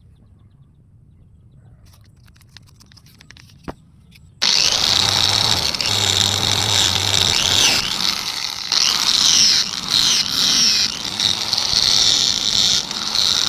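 Faint handling clicks, then an electric sander switches on abruptly about four and a half seconds in and runs loudly with a wavering hiss, cutting off near the end.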